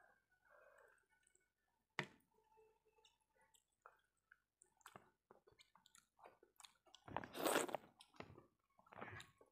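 Close-miked chewing and wet mouth sounds of a person eating rice and fish with her fingers, with scattered small clicks. One sharp click comes about two seconds in, and the chewing is louder for about a second near the end.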